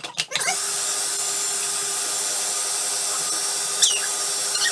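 Food processor motor starting after a couple of clicks and then running at a steady speed with a constant hum, puréeing the soaked-cashew cheesecake filling. Two short high squeaks sound near the end.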